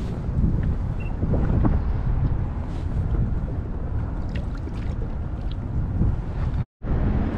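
Wind rumbling on the microphone over open water, steady and heaviest in the low end. The sound cuts out completely for a split second near the end.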